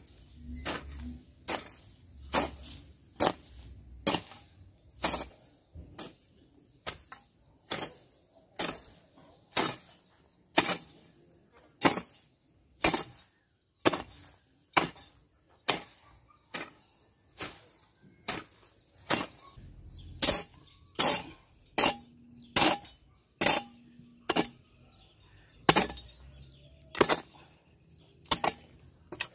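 Steel hand hoe chopping into dry, hard soil and weeds, one sharp strike about every second in a steady working rhythm.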